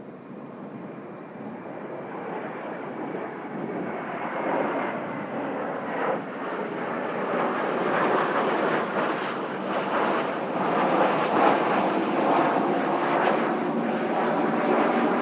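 Kawasaki T-4 jet trainers passing in flight, their turbofan roar building steadily louder as they approach. A faint high whine slides down in pitch near the start.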